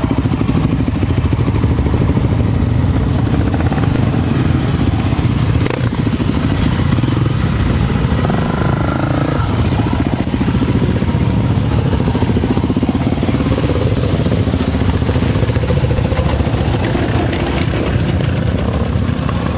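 Trail motorcycle engines running steadily as the bikes climb a rough rocky dirt track, the nearest engine loudest.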